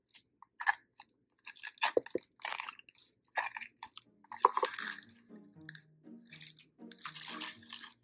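Metal ice cream scoop scraping and gouging the soft flesh out of a hollowed pineapple, in a series of uneven wet crunching scrapes.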